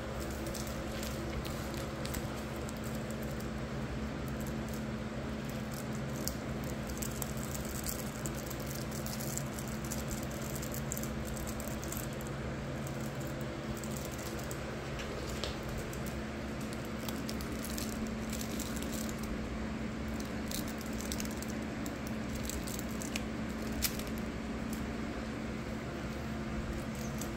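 Cats grooming one another: faint, scattered wet licking clicks and soft fur rustling over a steady low hum.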